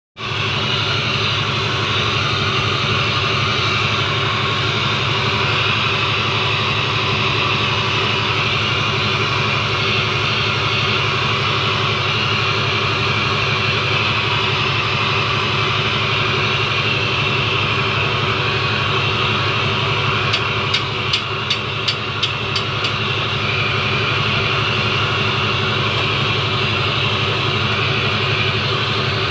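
A motor running steadily with an even, low hum, and a quick run of about eight sharp clicks about two-thirds of the way through.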